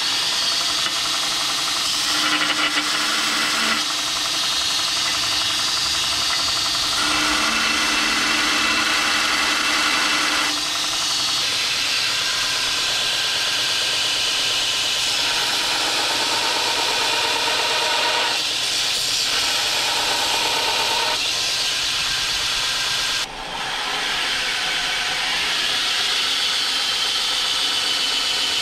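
Belt grinder running, grinding a steel dagger guard: a loud, steady hiss of abrasive on steel with shifting tones, dipping briefly twice, the second time near the end.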